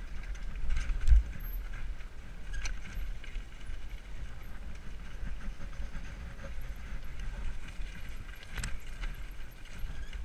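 Mountain bike riding fast down a rough dirt trail, heard from a helmet camera: a steady low wind rumble on the microphone with tyre and rattling-bike noise, broken by a few sharp knocks from the bumps, the loudest thump about a second in.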